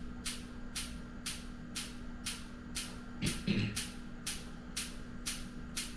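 Focused shockwave therapy handpiece firing its pulses as sharp, evenly spaced clicks, about two a second, over a steady low hum.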